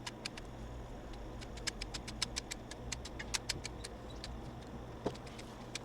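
Hand pruning shears snipping juniper twigs: an irregular series of short, sharp clicks, several a second in clusters, over a low steady hum.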